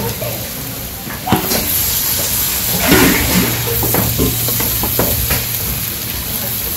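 Onions, green chillies and halved fried eggs sizzling in oil in a black wok while a wooden spatula stirs them. Scattered knocks and scrapes of the spatula against the pan, the loudest scrape about three seconds in.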